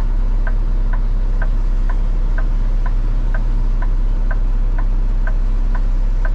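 Turn-signal indicator ticking evenly, about twice a second, inside a truck cab, over the steady low drone of the running engine.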